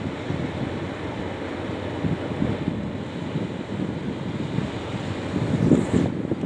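Freight train passing: a steady rumbling rush of rolling cars, with wind buffeting the microphone and a slight swell near the end.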